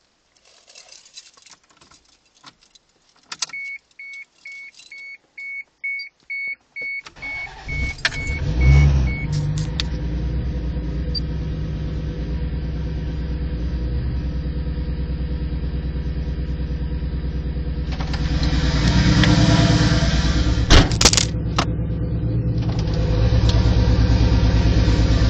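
Keys jangling and a car's warning chime beeping steadily. Then a Mk3 Supra's turbocharged 7M-GTE straight-six starts about seven seconds in and settles into a steady idle, with a brief rise in engine speed about two-thirds of the way through. The engine has a rod knock.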